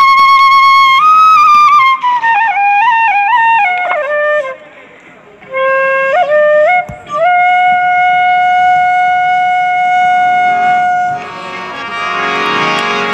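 A wind instrument playing a slow melody. It holds long notes, runs through ornamented notes that slide downward, pauses briefly, then steps up into one long steady note. The note stops about eleven seconds in, and a quieter, rougher wash of sound takes over.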